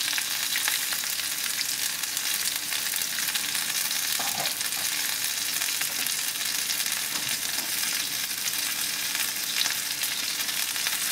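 Hot oil sizzling in a nonstick frying pan as a South Indian tempering of mustard seeds, cumin, chana dal, dried red and green chillies, ginger and garlic fries. It is a steady hiss with fine crackles throughout.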